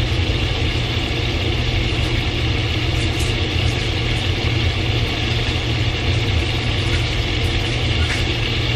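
Sliced sausage sizzling and simmering in a cast iron skillet on the stove, with a few faint pops, under a steady low hum.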